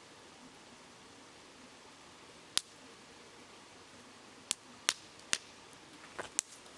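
Wood campfire crackling: about six sharp pops, one about two and a half seconds in and the rest close together in the second half, over the steady rushing hiss of a babbling river.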